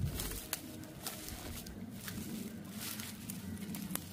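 Footsteps crunching and rustling through dry grass, about two light steps a second.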